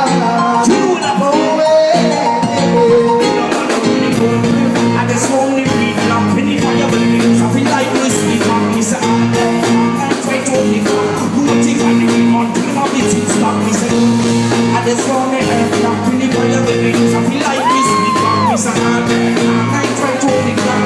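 Live reggae band and male lead singer performing through a concert PA, heard from the audience. A repeating bass line and chord rhythm fill out about four seconds in, and a short held high note rises and falls near the end.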